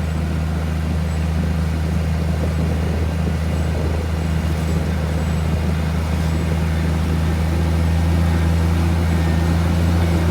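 Heavy diesel engine of earthmoving equipment running steadily with a deep, even hum, getting slightly louder toward the end.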